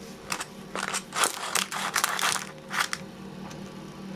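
A kitchen knife crunching and crackling through half-baked, egg-glazed puff pastry, cut right down to the bottom of the paper-lined tin. There are several short rasping strokes over the first three seconds, then it goes quieter.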